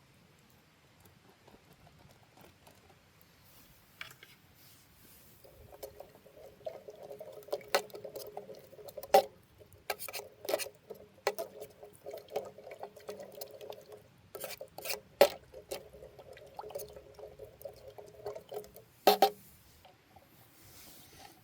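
A run of sharp clinks and scraping of small hard objects, starting about five seconds in and stopping a couple of seconds before the end, with a few louder clinks among them.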